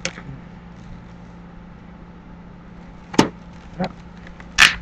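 Long latex twisting balloons handled and rubbed against each other while being twisted. There are a few short rubbing noises about three seconds in and again near the end, over a steady low hum.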